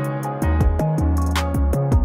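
Background music with a steady beat: bass notes under quick, regular high ticks.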